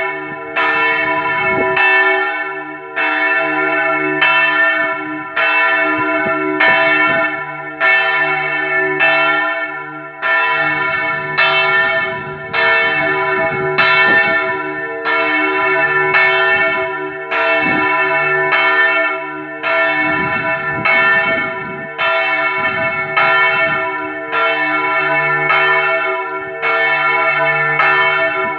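The major church bell, a Marinelli bell cast in 1876 and tuned to a slightly sharp E, rung alone in the Italian 'distesa' festive swinging peal. Its clapper strikes in a steady, even rhythm a little faster than once a second, and each stroke rings on with a deep hum under it into the next.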